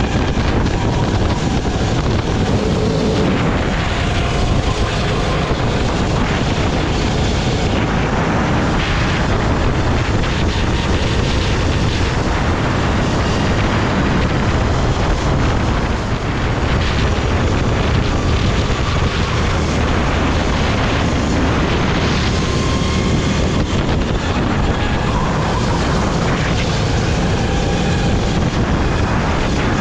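Sodi rental kart's engine running hard at racing speed, recorded onboard: a loud, steady engine noise whose pitch rises and falls as the kart accelerates and slows through the corners.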